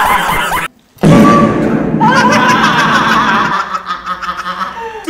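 Men laughing and shouting excitedly, with a short break about a second in.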